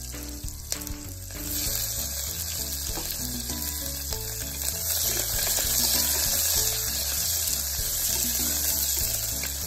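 Sliced onions sizzling in hot oil in an aluminium pressure-cooker pot. The sizzle grows louder about a second and a half in, and a wooden spatula stirs them near the end.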